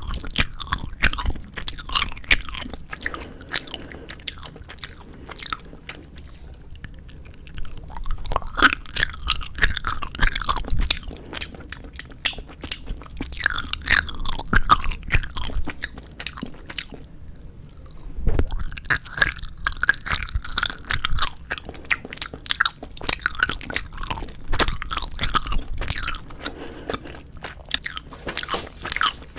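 Close-miked chewing of 4D gummy jelly candy: wet, clicky mouth sounds that come in bouts, with short quieter pauses between them.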